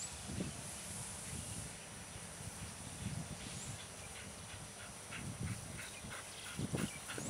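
A dog barking a few times, faint and muffled, each bark short and a second or two apart.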